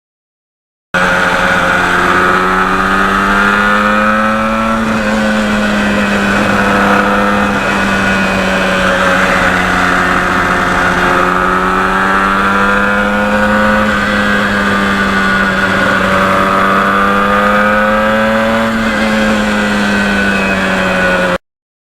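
A 1977 Yamaha RD400's two-stroke twin engine running under way at a fairly steady speed, its pitch rising and falling gently. The sound cuts in about a second in and cuts off suddenly near the end.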